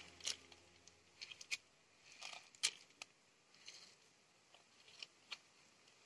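About a dozen soft, irregular clicks and ticks: seed grains dropped onto the cardboard of a box bird trap, with small handling noises.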